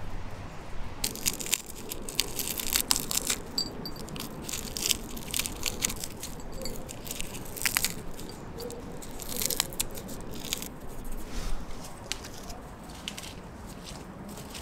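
Dried capelin being torn and broken apart by hand, a run of crisp crackling snaps and crunches that starts about a second in and dies away near the end.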